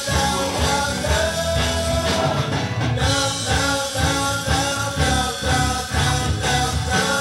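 A rock-style pop song with a lead vocal holding long notes over a steady beat.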